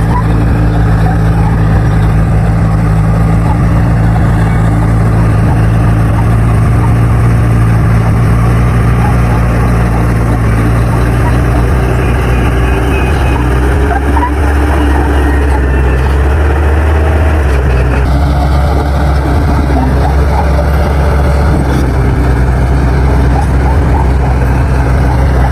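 Crawler bulldozer's diesel engine running loud and steady under load while pushing soil; its pitch drops about halfway through and holds at the lower speed.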